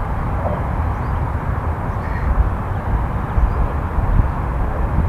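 Wind buffeting the camera microphone: a steady low rumble that rises and falls in gusts, with a hiss on top.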